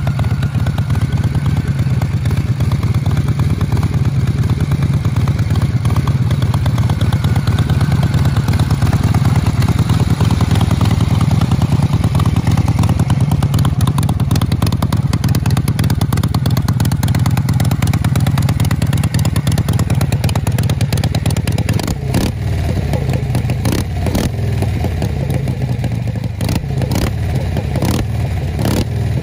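Harley-Davidson Shovelhead V-twin engine running steadily through short open exhaust pipes. Several sharp knocks come in the last few seconds.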